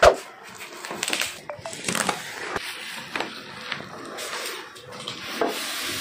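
Cardboard carton being handled and opened, with plastic wrap rustling and crinkling as a wrapped glass aquarium tank is pulled out of it. A sharp thump right at the start is the loudest sound, followed by scattered clicks and rustling.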